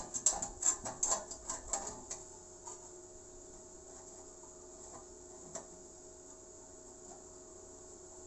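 Clinks and clicks of steel square-tubing pieces being handled and fitted together by hand: a quick clatter in the first two seconds, then only a few single clicks, over a faint steady hum.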